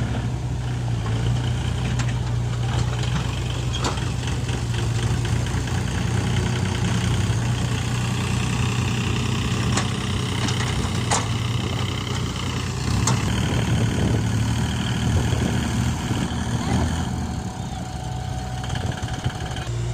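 Diesel engine of a JCB 3DX backhoe loader running steadily at work, with a few sharp knocks scattered through.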